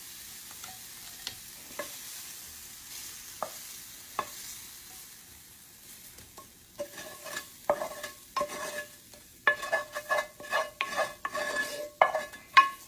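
Wooden spatula scraping fried chicken pieces out of a nonstick frying pan. There are a few light knocks at first, then from about halfway quick repeated scraping strokes, several a second, with a squeaky ringing tone.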